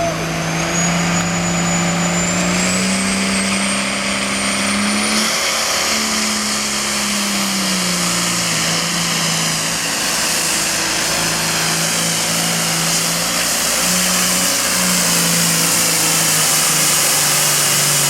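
A Super Farm class pulling tractor's turbocharged diesel engine running at full power during a pull. The engine note climbs over the first few seconds, sags briefly, then holds steady, while a high whistle rises in pitch over the first five seconds.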